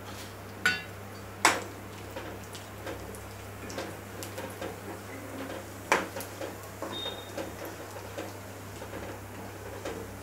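Dried coconut slices frying in hot oil in a kadhai with a light crackling sizzle, and a metal slotted skimmer spoon knocking against the pan three times as they are stirred.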